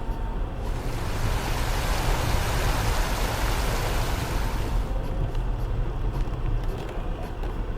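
Inside a Land Rover Freelander 2 driving a rough, wet track: a steady low rumble of engine and running gear, with a broad rushing hiss that rises about half a second in and dies away about five seconds in.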